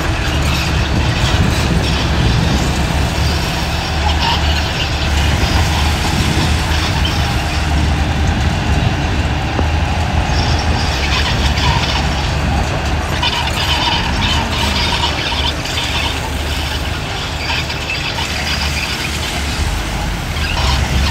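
Heavy tracked diesel construction machinery, an excavator and a bulldozer, running and working, with a steady low engine drone and metallic clanking and squealing from the crawler tracks.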